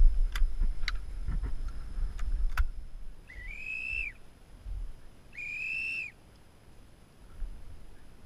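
A whistle blown twice, two clear steady blasts each a little under a second long, a second or so apart. Before them, a few sharp clicks and low knocks from the shotgun being handled in the butt.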